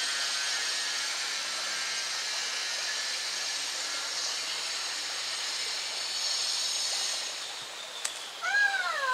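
A steady high-pitched hiss, then, about eight seconds in, a woman's high squeal of excitement that falls in pitch as she pulls a fish out of the creek on a cane pole.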